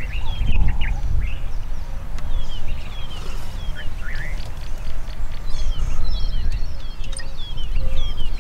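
Wild birds calling: many short chirps, each falling in pitch, repeated throughout, over a steady low rumble.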